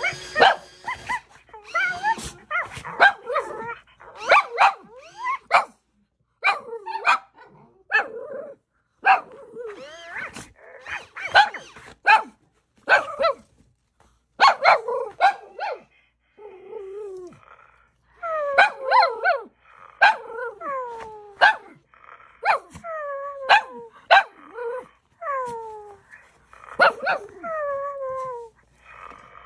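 Shih Tzu barking and growling in short bursts. In the second half comes a run of short calls that fall in pitch, about one a second.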